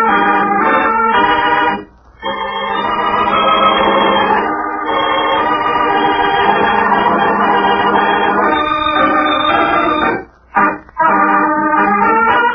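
Organ music playing held chords, broken by short pauses about two seconds in and twice near the end: the theme music opening a 1940s radio mystery drama.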